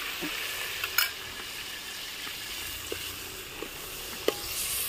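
Freshly ground green masala of coriander, coconut, garlic and ginger sizzling in hot oil in a steel pot, with a sharp clink of the ladle about a second in and a few lighter taps as it is stirred.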